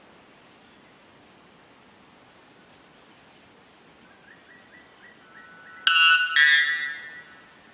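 White bellbird giving its very loud two-note call about six seconds in: a sudden short first note, then a longer second note that fades away. Under it a steady high-pitched insect drone runs throughout.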